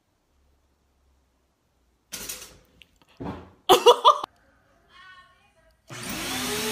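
A pop-up toaster springs up about two seconds in, followed by loud human voices. Near the end an upright vacuum cleaner starts running with a steady noise.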